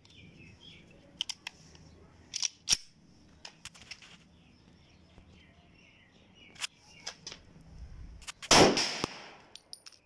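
A few sharp clicks as a 9mm Zigana pistol is handled and readied, then a single 9mm pistol shot about eight and a half seconds in, its report ringing briefly off the walls.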